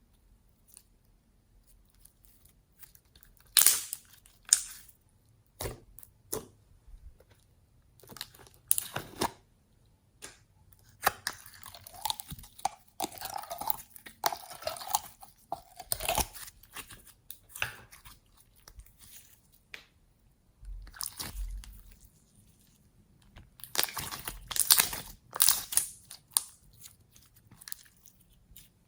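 Glossy slime being squished and mixed by hand, giving irregular wet clicks, pops and crackles in clusters, densest in the middle and again near the end.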